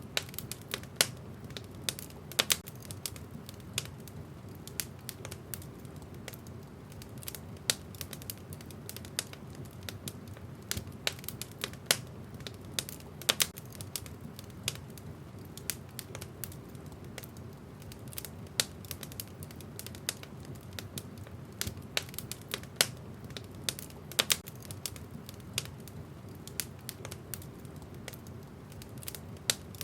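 Wood fire burning in a fireplace, crackling with frequent irregular sharp pops over a steady low rush of the flames.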